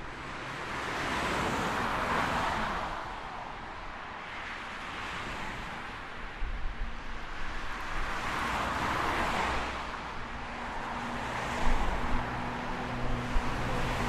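Road traffic: cars passing by with the rising and falling hiss of tyres, one pass about two seconds in and another larger one near the middle. Later a low engine hum sits under the traffic, with a couple of sharp knocks near the end.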